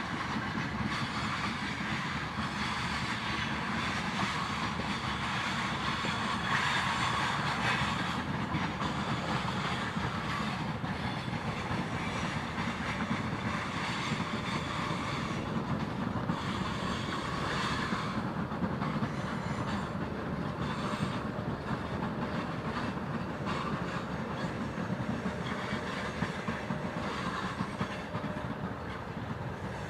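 A freight train of loaded grain wagons rolling past, wheels clicking over the rail joints.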